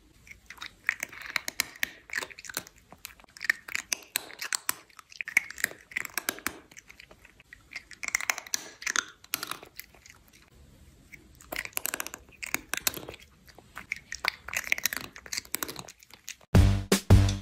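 A cat close to the microphone making short, clicking, crunching mouth sounds in groups every second or two. Loud drum-led music cuts in near the end.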